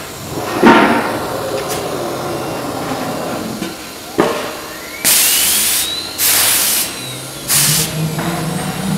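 Automatic tool change on a linear-ATC CNC router: a knock or two, then three sharp hisses of compressed air from the pneumatic spindle releasing and clamping the tool holder, with a faint whine rising and falling across them. Near the end a low hum starts and climbs in pitch as the spindle spins up again.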